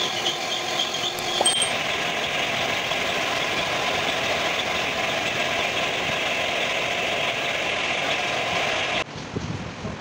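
Compressed-air spray gun hissing steadily as it sprays paint, cutting off sharply about nine seconds in to quieter background noise.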